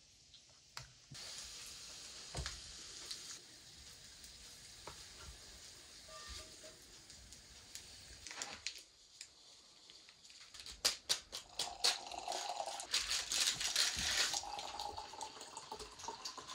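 Breakfast being dished up: a spatula scrapes food from a frying pan onto plates, and utensils and dishes clink. Late on, coffee is poured from a pot into mugs with a louder, splashing liquid sound.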